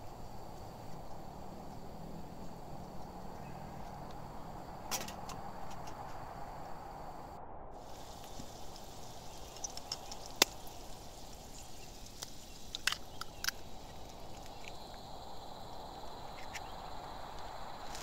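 Sausage pieces frying in oil in a pan on a small camp stove with a steady soft sizzle, broken about ten seconds in by a sharp tap as an egg is cracked on the pan, followed by a few lighter clicks; the sizzle grows brighter near the end as the egg fries.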